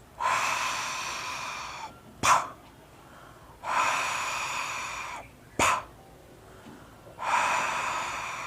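A man forcefully blowing a long breath out through his mouth three times, each followed by a short sharp consonant sound, as a speech-therapy exercise for pushing air out of the mouth instead of the nose.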